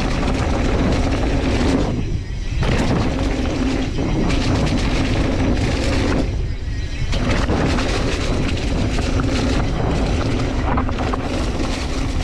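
Mountain bike descending a dirt trail at speed: steady tyre rumble, frame rattle and wind noise on a handlebar-mounted camera. The rolling noise thins out briefly twice, about two seconds in and again past six seconds.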